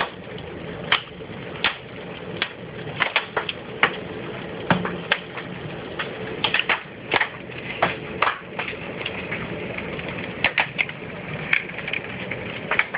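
Large hailstones, golf-ball sized, striking hard surfaces in irregular sharp cracks, a few a second at times, over a steady hiss.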